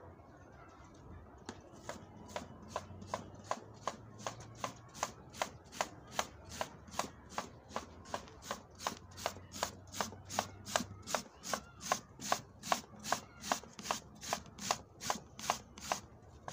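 Carrots being grated on a metal box grater: steady, even rasping strokes, about two and a half a second, each with a faint metallic ring.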